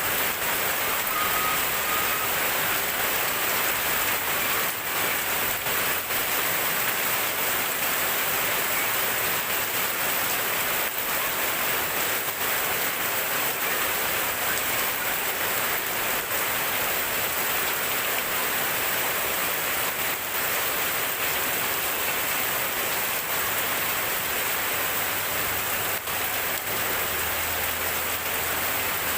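Steady rain falling in a dense, even hiss, with now and then a sharper drop or drip.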